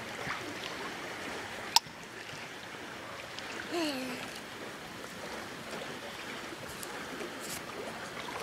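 Lake water lapping and swishing softly around a swimmer treading water, with one sharp click about two seconds in and a short, faint falling-pitched sound a little before halfway.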